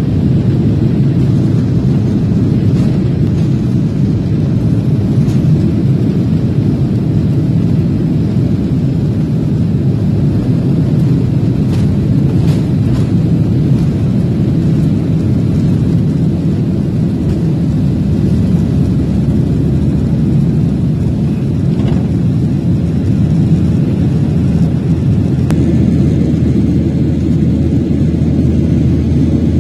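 Jet airliner's engines at takeoff thrust, heard inside the cabin from a window seat over the wing: a loud, steady, deep roar through the takeoff roll and climb-out after liftoff. Near the end the roar settles into a steadier low hum.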